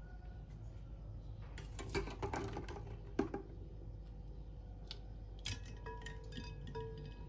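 Kitchen utensils and dishes clinking and knocking during food preparation. There is a cluster of clinks about two seconds in and a sharp knock about three seconds in, the loudest sound. Near the end come more clinks with brief ringing tones.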